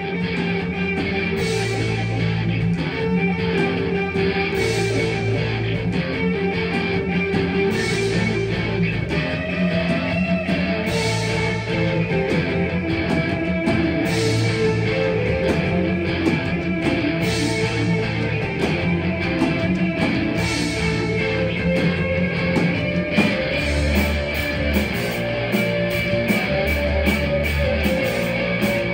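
Live rock band playing: electric guitars, bass guitar and drums. The cymbal hits come quicker in the last few seconds.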